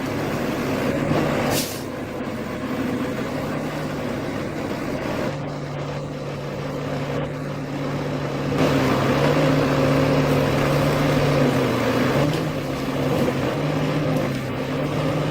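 Diesel engine of a Ponsse Fox forest harvester running steadily, its pitch shifting a little under load. There is a short hiss about a second and a half in, and the engine gets louder about halfway through.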